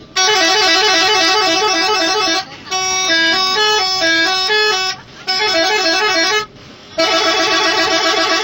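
A bus's musical 'telolet' horn playing loud multi-tone melodies in four blasts with short breaks between them: quick trills and stepping tunes, the last blast still going at the end.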